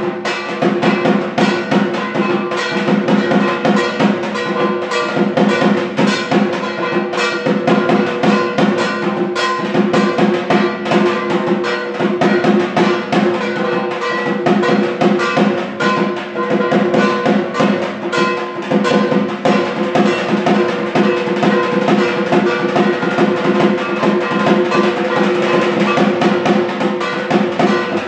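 Dhak, the large Bengali barrel drum, beaten with sticks in a fast, steady rhythm, its ringing drum tones sustained under the dense strokes: the rhythm played for dhunuchi dancing.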